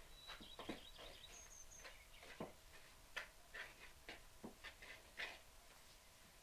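Faint, scattered soft knocks and brushing of hands working glutinous rice flour and water into a crumbly dough in a wooden bowl. A thin high tone and a few quick high chirps sound in the first two seconds.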